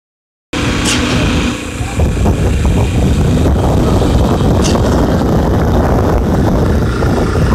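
Construction machinery running steadily and loudly at a concrete slab pour. It cuts in about half a second in, and a short high squeal sounds twice, about four seconds apart.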